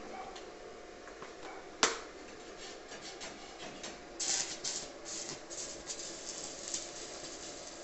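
Stick (MMA) welding arc from a Daniu MINI MMA-200 inverter welder: one sharp snap about two seconds in, then a little past four seconds the arc strikes and crackles and sputters in irregular bursts.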